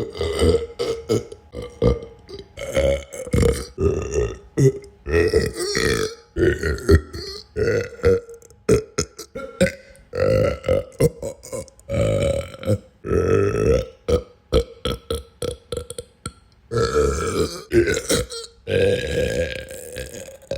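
Human belching over and over: a long string of burps, some short and some drawn out for a second or so, with brief gaps between them.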